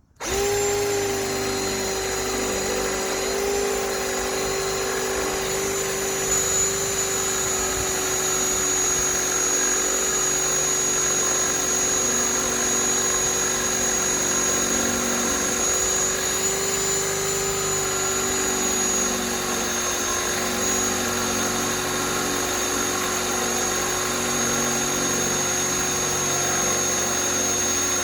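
Bauer compact cordless hammer drill starting up and running continuously under load with a steady motor whine, slowly boring a large bit through the workpiece.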